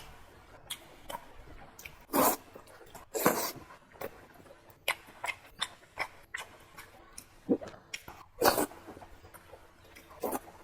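Close-miked eating of stewed fatty pork belly with pickled cabbage: irregular wet chewing and lip-smacking, with a few louder smacks.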